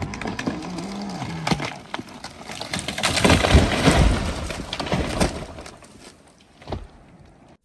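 A tree creaking with a low groan, then cracking and splintering as it breaks, loudest about three to four seconds in, then fading away.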